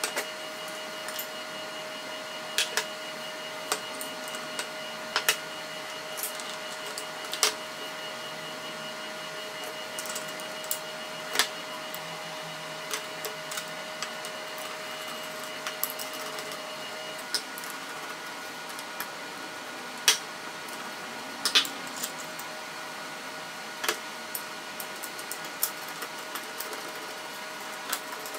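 Irregular light knocks and clicks of walnut shelf parts and metal fittings being handled and fitted together during assembly of a folding shelf. Under them runs a steady hum with a faint whine that stops about 17 seconds in.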